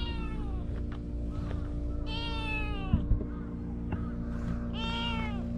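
Young tabby-and-white cat meowing three times, each call falling in pitch, over a steady low hum; a couple of sharp knocks about three seconds in.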